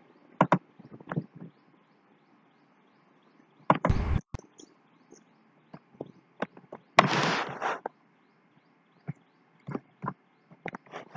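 Scattered clicks and knocks, with a heavier bump about four seconds in and a brief rustling burst about seven seconds in.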